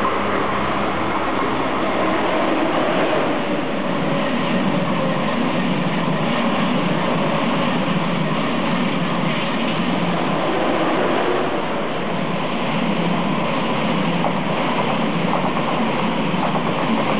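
Deutsche Bahn ICE high-speed electric train passing close by: a steady, loud rush of wheels on rail.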